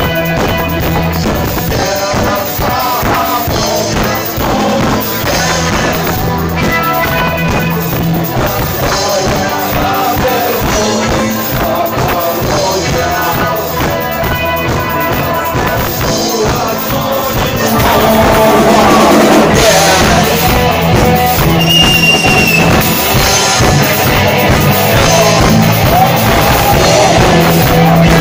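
Rock music with drum kit, guitar and singing, getting louder about 18 seconds in.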